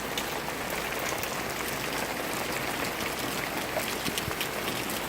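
Heavy rain pouring down: a steady hiss of rain with many sharp, scattered drop ticks close to the microphone.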